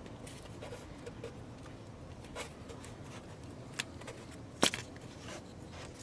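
Small plastic clicks and scrapes as a screwdriver pries at the wiring connector plug on a Mk4 Volkswagen Golf's oil pressure switch, with one louder sharp click about two-thirds of the way through as the plug's clip lets go.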